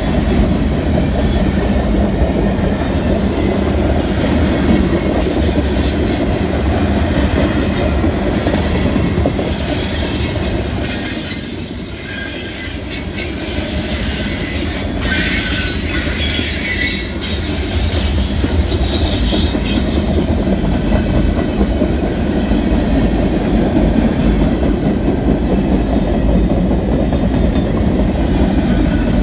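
A BNSF manifest freight train's boxcars and covered hoppers rolling past close by: a steady, loud rumble of steel wheels on rail with clacking over rail joints, and a high wheel squeal that comes and goes. The rumble eases a little for a couple of seconds before picking back up.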